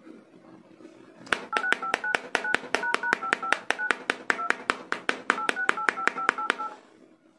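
Smartphone dialer keypad beeping with touch tones as keys are tapped quickly with the tip of a hex key, each press a sharp tap with its short two-note beep. About two dozen presses at four to five a second, starting about a second in and stopping shortly before the end.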